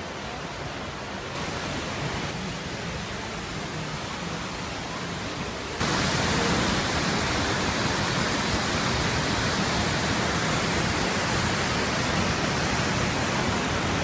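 Jōren Falls, a waterfall plunging into its pool, rushing steadily. The rush is fainter at first and jumps abruptly louder about six seconds in, heard from close by the falls.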